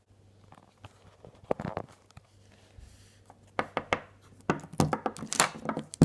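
Handling noise of plastic toy figures and a hand-held phone camera: scattered clicks and knocks that grow busier in the second half, ending in one loud knock as the camera is moved.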